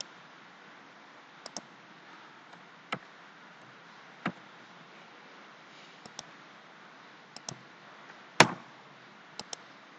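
Scattered clicks of a computer keyboard and mouse during equation typing: about ten sharp clicks, some in quick pairs, with the loudest about eight and a half seconds in.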